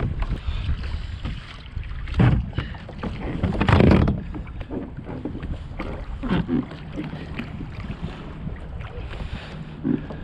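Wind buffeting the microphone with water splashing against a kayak in choppy waves, louder splashes about two seconds and four seconds in.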